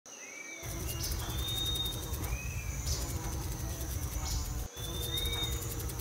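Outdoor nature ambience: a steady high insect drone, with a bird's short arching call repeating about every two seconds over a low rumble that starts about half a second in.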